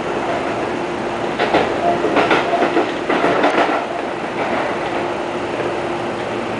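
Seibu 20000 series electric train running, heard from the driver's cab, with a steady running noise and a faint steady tone. About a second and a half in, the wheels clack over rail joints and points for roughly two seconds.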